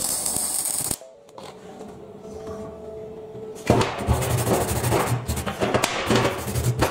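Welding arc crackling for about a second, then after a quieter stretch a hand-held steel wire brush scrubbing back and forth over the fresh weld to clean off slag and spatter, over background music.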